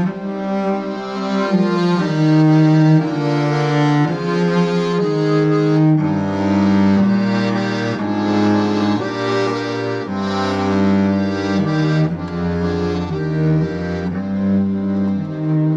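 Accordion and cello playing together in held notes, with a lower line of notes coming in about six seconds in.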